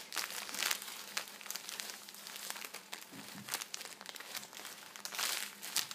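Clear plastic packaging around a squishy toy crinkling in irregular crackles as it is handled and squeezed.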